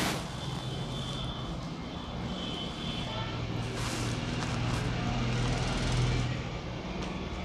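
A low, steady engine hum that swells to its loudest about six seconds in and then eases, with a few brief rushes of noise.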